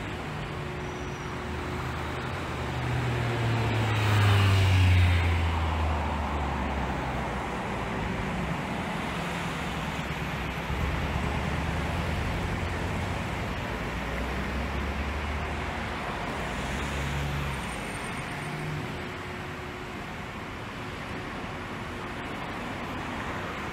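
Congested, slow-moving car traffic passing at the roadside: a steady mix of engine hum and tyre noise from a queue of cars creeping along. One vehicle is louder as it goes by about four to five seconds in.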